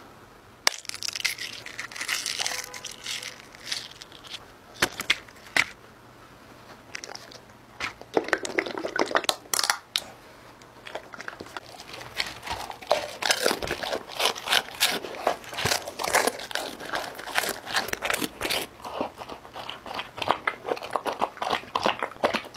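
Large black dog eating from glass dishes of kibble, chicken and apple: crunching and crackling with many sharp clicks, coming thickest in the second half.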